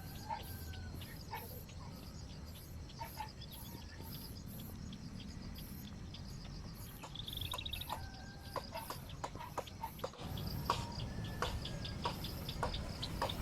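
Chickens clucking and birds calling, in short calls and brief held notes, with a quick trill about seven seconds in. Steady low background noise underneath grows louder from about ten seconds in, along with a run of sharp clicks.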